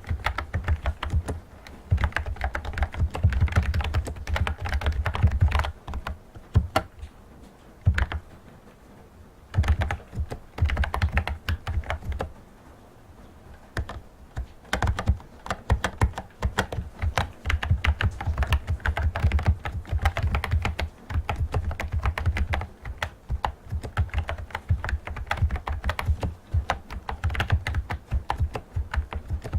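Fast typing on a typewriter-style Bluetooth keyboard: a dense run of clicking keystrokes, pausing briefly about six seconds in and again about twelve seconds in.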